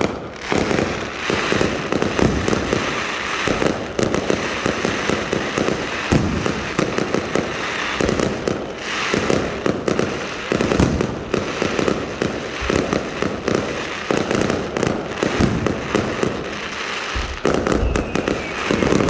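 Fireworks going off: a dense, continuous barrage of rapid bangs and crackles.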